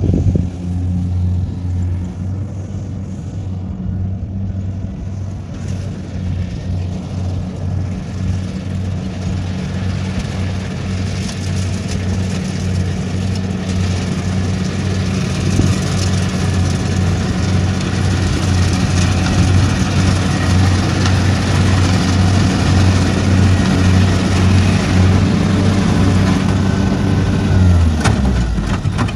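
Kubota rice combine harvester running steadily as it cuts and threshes rice, its diesel engine hum overlaid by a hiss that grows louder as the machine comes closer. Near the end the engine note drops.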